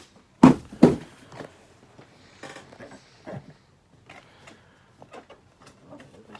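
Cardboard box being handled and opened: two loud thumps about half a second apart right at the start, then light rustling, scraping and clicks.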